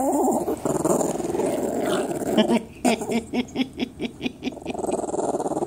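Small dog growling in long continuous stretches. In the middle this breaks into a fast run of short growl-grunts, about six a second, before the steady growl resumes near the end.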